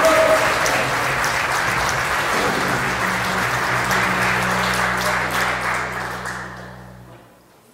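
A congregation applauding, the clapping dying away near the end. A low steady tone sounds beneath it for the second half.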